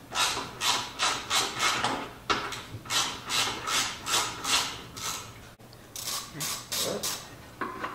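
Hand ratchet wrench clicking in quick back-and-forth strokes, about two to three a second, as it backs out the bolts of a Jeep Wrangler JK's factory spare-tire carrier mount. There is a brief pause about five and a half seconds in, then another run of strokes.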